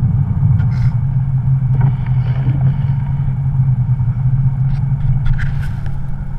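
Rally car's engine running steadily at low speed, heard from inside the cabin, with a few light clicks and knocks about a second in and again near the end.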